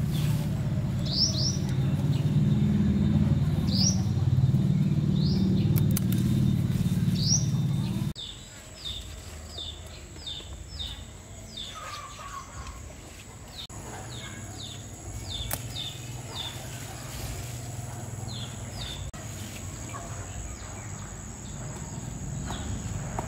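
Small birds chirping over and over in short, quick rising notes. For about the first eight seconds a loud low rumble lies under them, then it stops abruptly. After that a steady high-pitched tone runs on behind the chirps.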